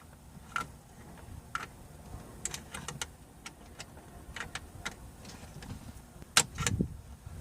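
Scattered small clicks and taps of a plastic trim removal tool working at the console panel's hidden retaining tabs, with two louder clicks near the end.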